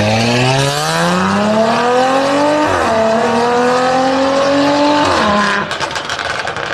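Mercedes-AMG C450's twin-turbo V6 accelerating hard through an ARMYTRIX decat valved exhaust. Its pitch climbs, dips at an upshift about two and a half seconds in, then climbs again until the throttle lifts about five seconds in. A quick run of exhaust crackles and pops follows on the overrun.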